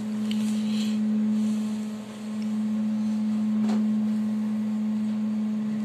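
A steady low hum on one unchanging tone, dipping briefly about two seconds in.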